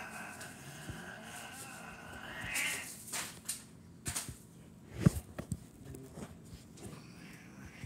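Cats scuffling on a kitchen counter: one gives a long, drawn-out yowl that rises at its end, then scattered knocks and taps follow, with a louder thump about five seconds in.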